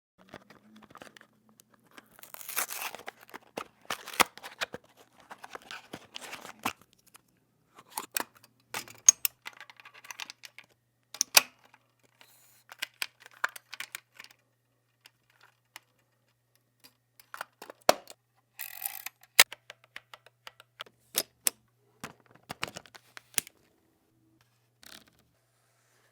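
A film camera being handled: scattered sharp mechanical clicks and short rasping scrapes, irregularly spaced with quiet gaps between.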